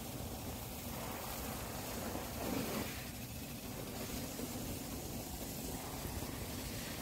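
Steady outdoor background noise: a low rumble with a hiss over it and no distinct event, swelling slightly about two and a half seconds in.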